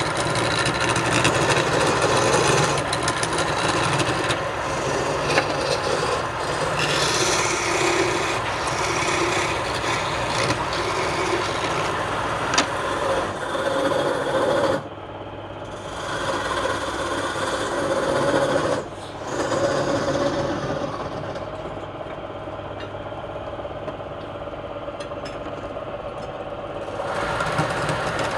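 Wood lathe running while a turning tool cuts into the spinning wood: a rough scraping over the steady hum of the motor. The cutting breaks off briefly twice around the middle and is lighter for a while in the later part.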